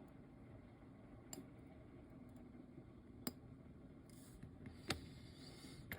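Faint, sharp clicks of small metal watchmaker's tools against the parts of a watch movement being taken apart: three light clicks, about a second and a half to two seconds apart, with a brief soft rustle just before the last, over quiet room tone.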